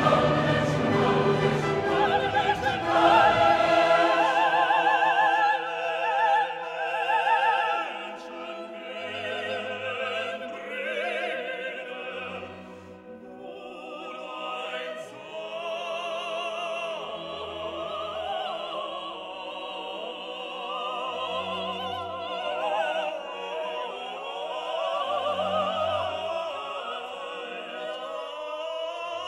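Background operatic music: a singer with wide vibrato over an orchestra, louder in the first few seconds and softer after that.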